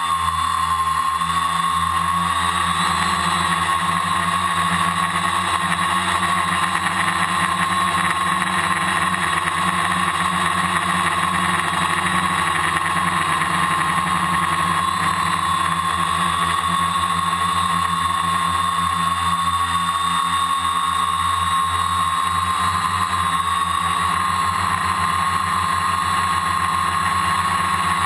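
Multirotor drone's electric motors and propellers whining steadily, heard close up from the drone's own onboard camera. The single strong pitch wavers slightly now and then but never stops.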